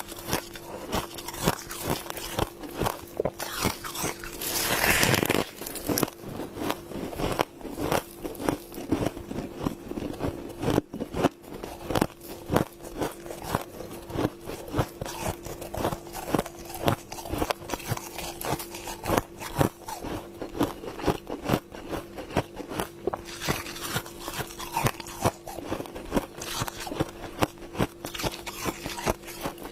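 Humidifier frost being bitten and chewed close to the microphone: a continuous, irregular run of crisp crunches, with a steady faint hum underneath.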